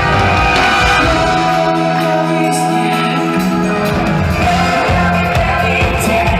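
A military orchestra playing live, with sustained brass-band chords and a drum beat that comes in clearly about halfway through.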